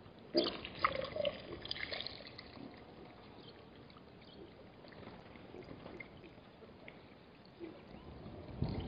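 Warthogs splashing and sloshing through the shallow, muddy water of a waterhole, busiest in the first two seconds with a few sharp knocks, then quieter before picking up again near the end.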